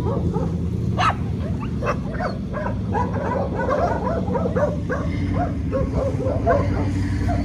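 Several dogs barking and yapping in a rapid, overlapping flurry, several barks a second, over a steady low rumble.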